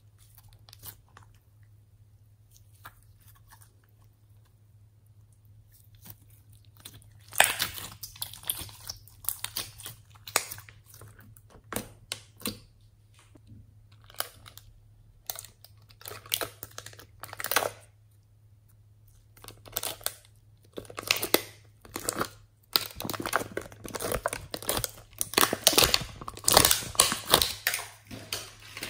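Homemade slime being squeezed, stretched and pressed by hand, giving wet crackling and popping in bursts. It is quiet for the first several seconds and busiest near the end.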